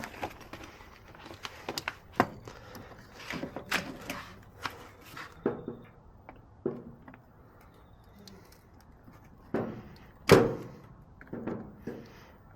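Scattered clicks, taps and knocks of tools and parts being handled during hands-on repair work, with one loud knock about ten seconds in.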